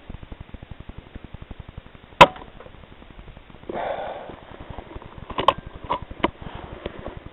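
A single sharp rifle shot about two seconds in, followed a couple of seconds later by a brief scuffling rustle and then four sharp clicks. A fast, steady ticking runs underneath.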